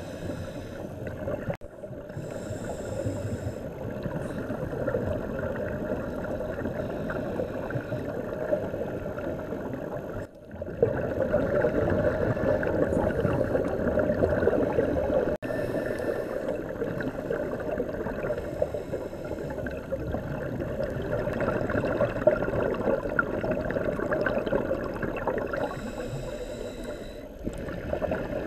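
Underwater camera audio on a scuba dive: a steady, muffled rush of water noise, with the diver's exhaled regulator bubbles gurgling up now and then. The sound changes abruptly a few times.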